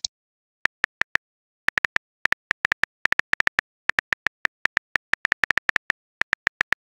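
Smartphone keyboard typing sound effect: a quick, uneven run of short identical key clicks, several a second, with brief pauses between bursts.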